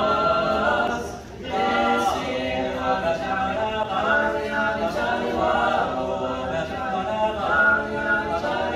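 A small group of teenage boys singing a cappella, with a short gap for breath just over a second in.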